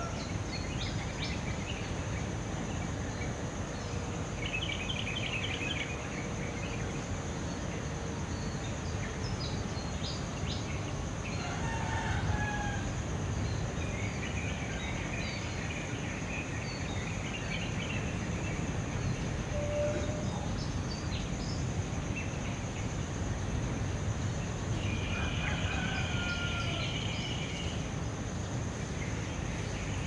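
Early-morning birdsong: several birds chirping and calling, with a longer trill about five seconds in and another near the end. Underneath runs a steady low rumble and a constant high-pitched hiss.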